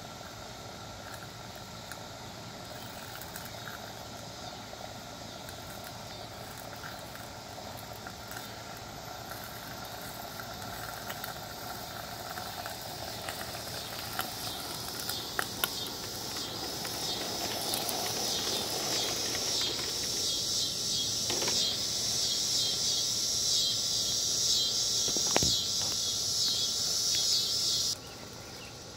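Live-steam LGB/Aster Frank S garden-scale locomotive chuffing, a rapid rhythmic steam hiss that grows steadily louder as it approaches and drops away abruptly near the end. A few sharp clicks come in the middle.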